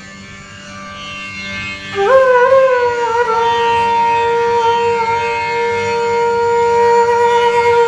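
Bamboo bansuri flute entering about two seconds in with a note that bends upward, then is held long and steady, with a small dip in pitch near the end.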